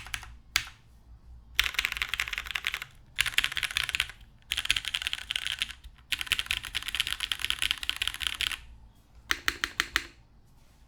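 Typing on a Duck Orion V2 mechanical keyboard: lubed, retooled Cherry MX Black linear switches in a top-mounted aluminum plate with no foam, under Cherry doubleshot keycaps. Fast runs of keystrokes come in several spells with short pauses between them, and a handful of separate, deeper strokes come near the end.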